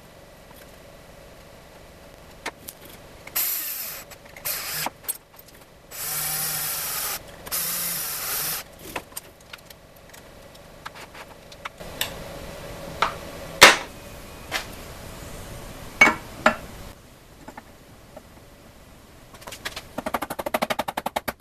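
Cordless drill run in four short bursts, a couple of seconds in all, working on a small aluminum bracket. Later come several sharp knocks and a quick run of light taps near the end.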